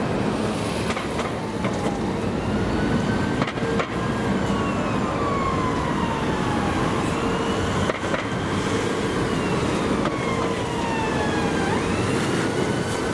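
Emergency vehicle siren sounding a slow wail, its pitch rising and falling over several seconds and repeating, over a steady hum and background rumble.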